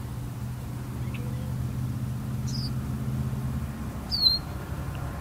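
An engine's low steady hum that fades out about four seconds in, with a few short bird chirps over it; the loudest is a sharp falling chirp just after four seconds.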